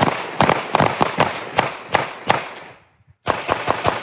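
Several shooters firing handguns together in quick, overlapping shots, each crack with a short echo after it. There is a long string, a brief pause about three seconds in, then another fast string.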